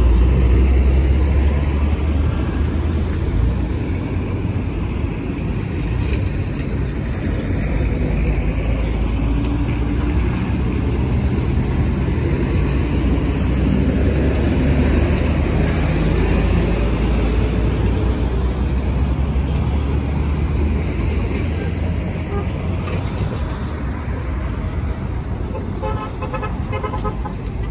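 Road traffic on a busy highway: a steady wash of passing engines and tyres with a heavy low rumble, and a vehicle horn tooting in quick short pulses near the end.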